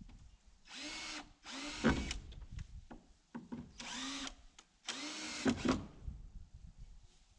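Power drill run in four short bursts, in two pairs. Each burst spins up quickly and then holds its speed.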